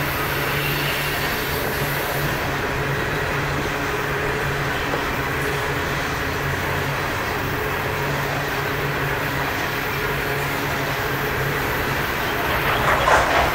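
Freight train's coal hopper cars rolling past on curved track: a steady rumble of wheels on rail, with a brief louder rattle near the end.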